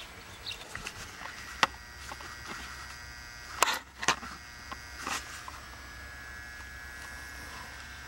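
A few sharp clicks and knocks of handling, the loudest about one and a half and three and a half seconds in, over a low steady hum.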